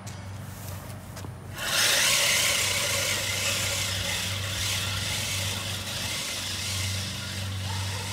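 American Lawn Mower Company 1815-18 push reel mower being pushed through tall grass. Its spinning reel blades cutting the grass set up a steady whirring hiss that starts about a second and a half in and slowly fades as the mower moves away.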